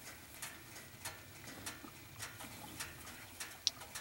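Faint, regular ticking, a little under two clicks a second, with one brief high chirp near the end.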